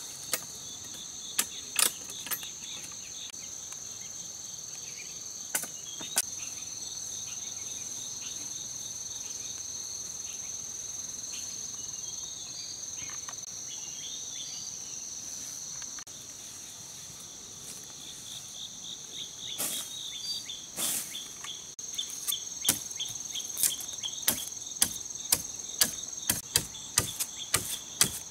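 Steady high-pitched insect chorus of forest crickets or cicadas. A few sharp knocks come in the first few seconds, and from about two-thirds in a run of machete chops into a thin sapling stem, speeding up to two or three strikes a second near the end.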